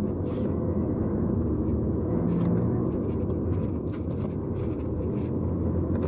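Car driving along a narrow paved road, heard from inside the cabin: a steady low rumble of engine and tyre noise, with a few faint clicks.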